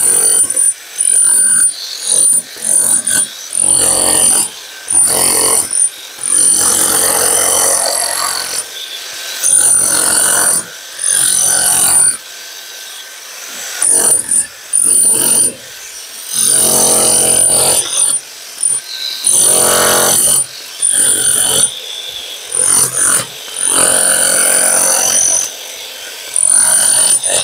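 A hand-held electric power tool run in repeated bursts of one to three seconds against a concrete wall, cutting a groove for electrical conduit. A high motor whine rides over each burst.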